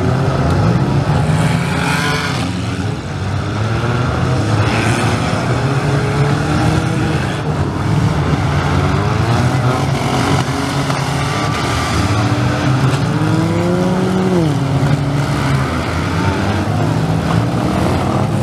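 Several gutted compact demolition-derby cars' engines running hard and revving up and down as they ram and push each other, with a couple of crashes about two and five seconds in.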